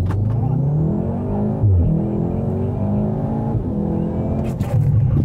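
Volkswagen Golf R's turbocharged 2.0 TSI four-cylinder accelerating hard, heard from inside the cabin: the engine note rises, drops sharply at an upshift about a second and a half in, then climbs again. Near the end the revving stops as the car brakes on the wet track.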